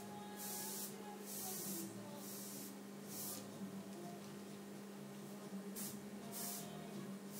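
Airbrush spraying paint in short hissing bursts, about six of them, four in quick succession over the first three seconds and two brief ones near the end, over a steady low hum.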